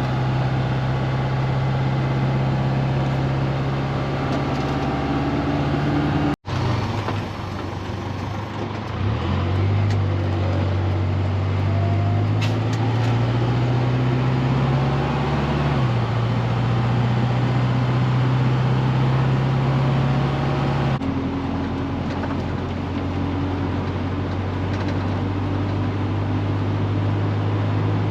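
Truck engine and road noise heard from inside the cab while driving, with a steady low engine hum; a few seconds past the middle the engine pitch climbs for several seconds and then drops back.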